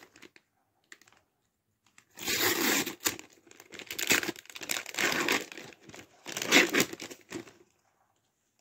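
Crinkling, tearing plastic packaging of an adhesive plaster being torn open and handled, in about four rustling bursts between roughly two and seven and a half seconds in.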